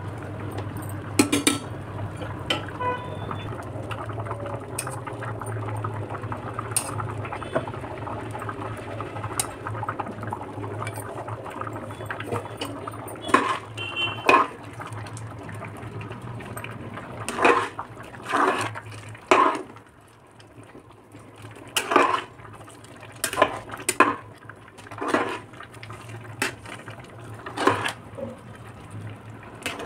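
A ladle scraping and knocking against the side of an aluminium pressure cooker as rice and vegetables in water are stirred, the strokes coming in quick bunches through the second half. A steady low hum runs underneath.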